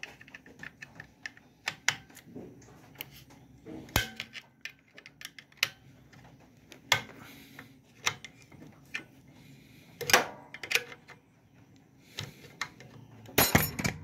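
Flat-blade screwdriver prying the metal mounting clips off a Whirlpool washing machine motor: scattered sharp metallic clicks, taps and scrapes. There are a few louder knocks, one about ten seconds in and a quick cluster near the end as the motor comes free of its mount.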